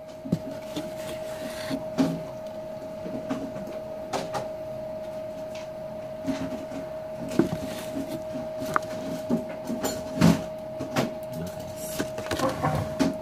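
Scattered knocks and clicks of a plate and a phone being handled on a tabletop, over a steady high-pitched hum.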